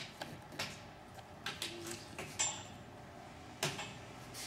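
Scattered light clicks, taps and clinks of a polycarbonate windshield panel and its metal mounting bracket being handled and set in place, with the sharpest knock near the end.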